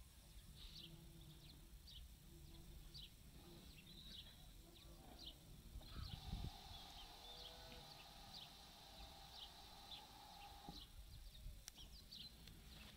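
Faint outdoor quiet with small birds chirping every second or so. A faint steady tone sounds for about five seconds in the middle, and there is a low thump just before it.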